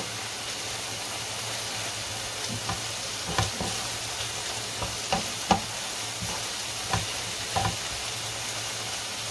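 Spinach sizzling steadily in a frying pan, with about half a dozen short knocks of a utensil against the pan as it is stirred.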